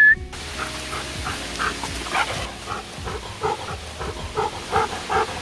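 A dog panting hard close to the microphone, a steady rhythm of about three quick breaths a second.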